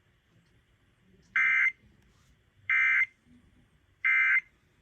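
Emergency Alert System end-of-message code: three short digital data bursts about a second apart, signalling the end of the weather alert.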